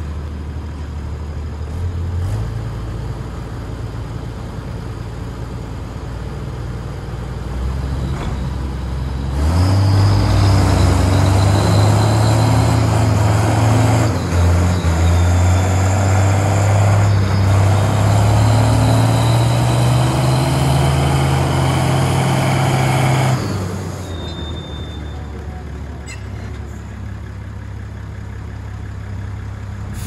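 Two tractor engines, a Case IH 1455 XL and an MB-trac 1000 with a truck-engine conversion, running at a moderate level, then both going hard under load in a strapped tug-of-war pull for about fourteen seconds. A thin high whistle sits over the engine drone, and both engines drop back suddenly near the end.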